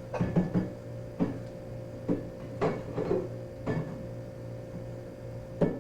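Irregular knocks and clunks of things being handled, about eight over the few seconds, the loudest near the end, over a steady low hum.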